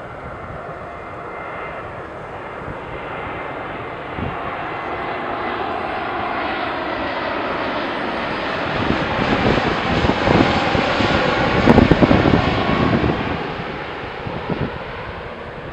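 Jet engines of an Airbus A321neo (Pratt & Whitney geared turbofans) on final approach, a steady roar that swells as the airliner passes, peaks about twelve seconds in, then fades as it moves away toward the runway.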